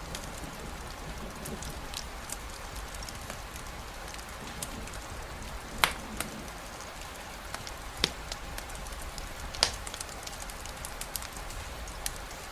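Steady rainfall with a campfire crackling, its scattered sharp pops standing out over the rain; the three loudest come about six, eight and nine and a half seconds in.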